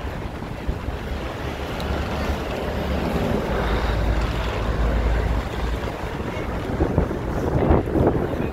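Wind rushing over a phone microphone carried on a moving bicycle: a steady low rumble, with a few short knocks near the end.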